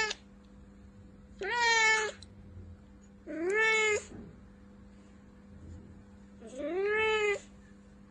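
Tabby cat meowing: the end of one meow right at the start, then three more drawn-out meows, each under a second long, the last rising and then falling in pitch. A faint steady hum runs underneath.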